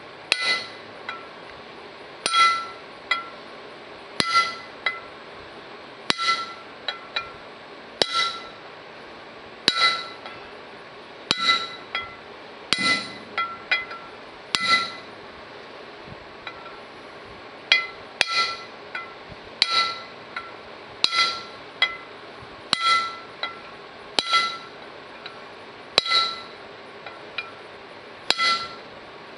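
Hammer tapping a copper punch to drive a new bushing into the bore of a John Deere 4400 combine's center drive pulley, with sharp metallic taps at roughly one a second, each with a short ring from the pulley. A pause of about two seconds comes midway.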